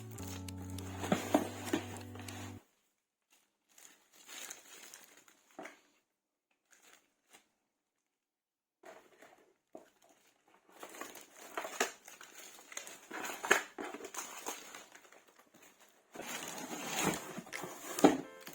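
Packaging crinkling and rustling as items are handled, in short stretches with silent gaps between them. Background music plays at first and stops about two and a half seconds in.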